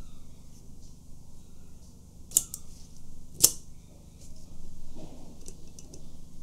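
Small metal parts of a 1960 Pentax S3 film camera clicking as the film advance lever and shutter-speed dial are fitted onto the top of the body: two sharp clicks about a second apart, then fainter ticks, over a low steady hum.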